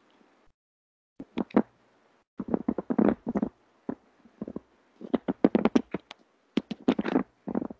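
Microphone crackling in irregular clusters of sharp clicks, coming and going in bursts. The noise changes with how the microphone wire is held, the sign of a bad wire or connection.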